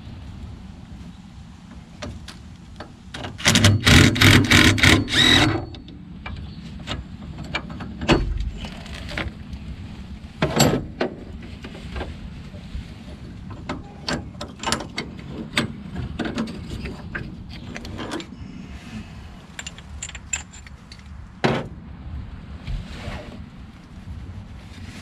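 Cordless impact driver hammering for about two seconds, loosening a bolt on a golf cart's engine-mounting bracket. Scattered metal clinks and knocks follow as the loosened bolts and the steel bracket are handled and lifted off.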